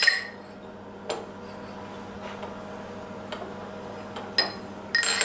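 Metal clinks and taps as a piece of scrap steel is handled and set against the steel milling vise: a handful of sharp ringing knocks a second or so apart, the loudest at the start and near the end, over a faint steady hum.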